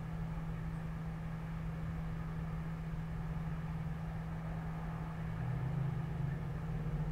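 Steady low mechanical hum with a rumble beneath it, swelling slightly about five and a half seconds in.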